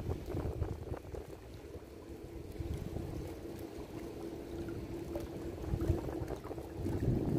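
Wind rumbling on the microphone, with a steady low hum held throughout.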